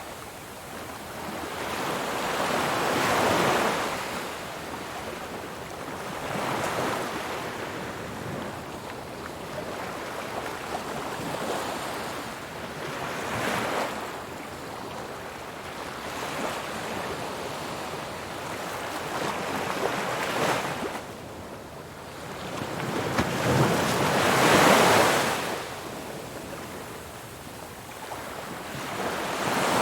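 Calm ocean waves breaking and washing in, the surf swelling and fading every few seconds, with the largest wave near the end.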